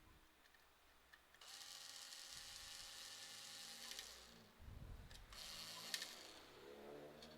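Small electric screwdriver running in two short spells, about two and a half seconds and then under a second, driving screws while hard drives are mounted in a PC case, with a soft bump between them.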